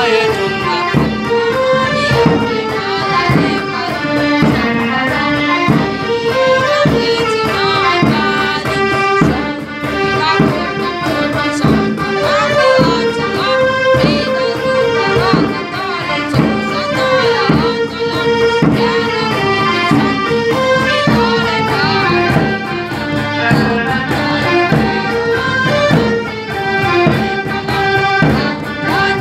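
Group of young voices singing a song together, accompanied by a hand-played cajón and a hand drum keeping a steady rhythmic beat.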